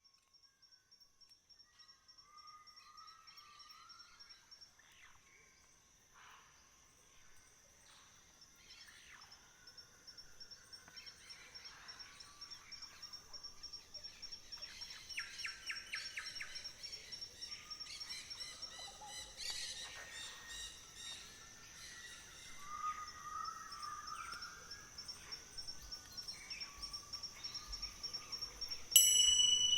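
Several birds singing and calling, with varied chirps and quick trills over a steady high-pitched buzz; the sound fades in and grows louder. Near the end a bright chime rings out.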